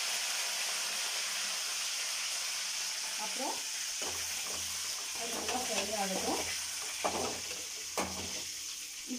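Curry leaves, mustard seeds and urad dal sizzling in hot sesame oil in a kadai: a steady, high frying hiss as the tempering cooks, stirred now and then.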